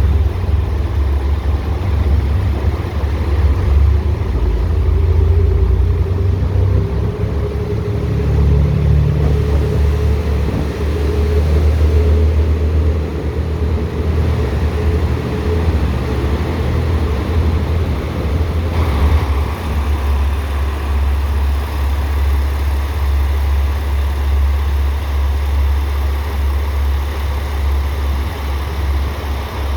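A train running, with a heavy low rumble throughout and a faint tone that rises slowly over the first half.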